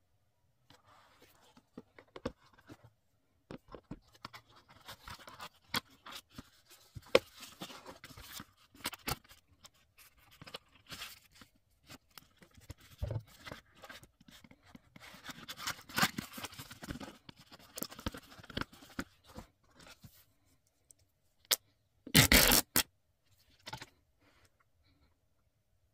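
Hands handling a Samsung Galaxy S24 Ultra and its cardboard packaging: scattered rustling, scraping and small clicks. A loud, short rasp about 22 seconds in.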